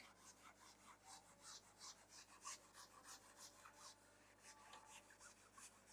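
A felt whiteboard eraser wiping marker off a whiteboard in quick, faint back-and-forth strokes, about three a second, stopping just before the end.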